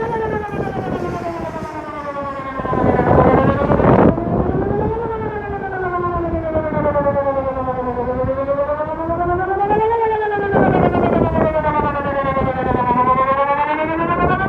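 Whelen WPS 2910 electronic outdoor warning siren sounding a slow wail during a routine test, its tone rising and falling over and over, a few seconds each way. A louder rush of noise comes through about three seconds in and again near eleven seconds.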